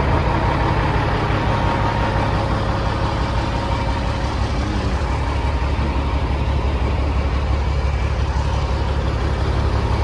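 Semi truck diesel engine idling steadily.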